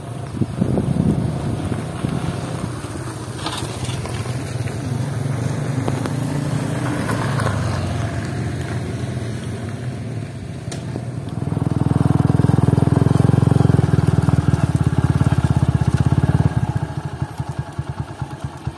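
Motorcycle engine running steady while riding slowly along a gravel road. It gets noticeably louder about two-thirds of the way in for several seconds, then eases off.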